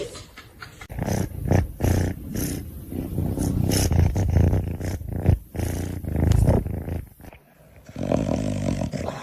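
A dog growling in a series of short, low rumbles, broken off by a brief gap near the end.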